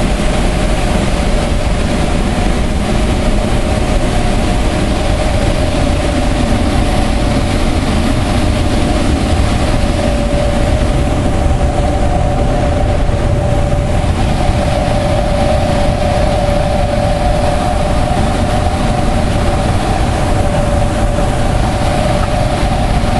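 Steady roar of river water pouring over a hydroelectric dam's spillway, with a steady low hum running through it.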